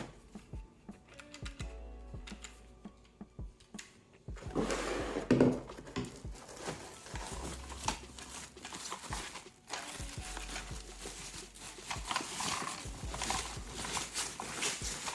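Rustling, crinkling and handling noises of packaging and plastic parts over soft background music, the loudest coming about five seconds in.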